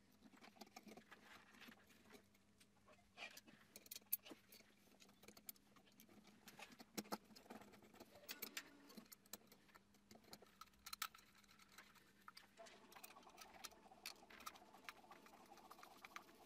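Faint, scattered small clicks and light scrapes of metal parts being handled: a steel mounting bracket, small screws and a screwdriver being fitted to a Mini H1 bi-xenon headlight projector.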